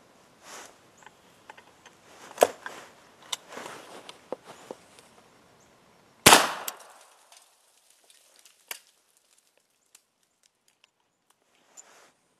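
A single-shot .357 Magnum rifle (H&R/NEF Handi-Rifle) is fired once about six seconds in: a sharp report whose echo fades over about a second. Before the shot come a loud sharp click and lighter handling clicks and rustling, and a few faint clicks follow it.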